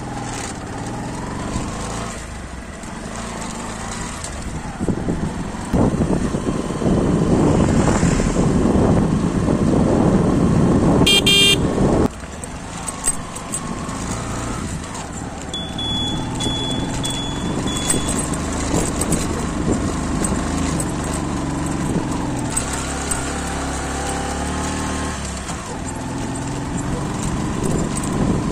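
Bajaj CT 110X single-cylinder motorcycle engine running on the ride, with a loud rush of noise from about five to twelve seconds in. A short horn beep sounds about eleven seconds in.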